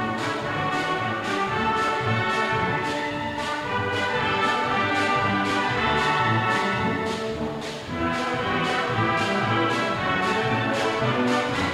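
A community brass band playing a hymn, with a drum or cymbal stroke keeping a steady beat about twice a second. The band eases off briefly a little before the eight-second mark and then comes back in full.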